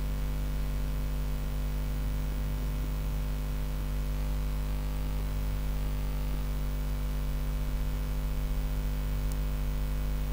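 Steady electrical mains hum with a light hiss, picked up in the recording.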